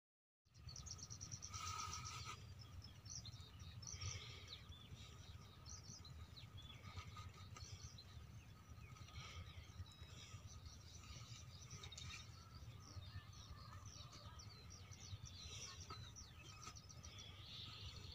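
Near silence in the open: faint, scattered bird chirps over a low, steady background hum.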